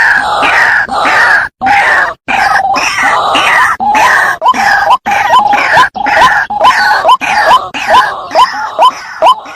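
White-breasted waterhen (ruak-ruak) calling: a dense jumble of overlapping croaking calls, then a fast run of short, sharply rising notes, about three a second.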